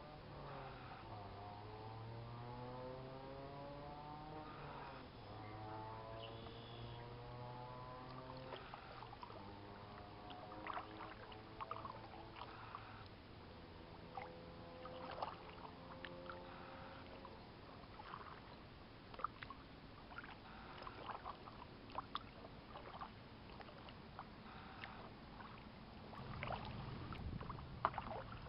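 Kayak being paddled, with water dripping and splashing off the paddle and small sharp ticks and knocks through the second half. In the first half a distant motor drones, its pitch slowly rising and falling.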